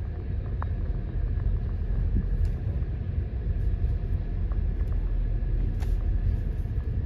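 Steady low rumble of a car rolling slowly, heard from inside its cabin, with a few faint clicks.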